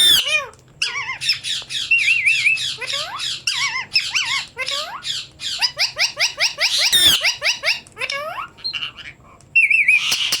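A parrot calling in a quick run of short squawks and whistled chirps, several a second, with rising and falling sweeps and a few warbling trills. There is a brief lull a little after the middle before the calls pick up again.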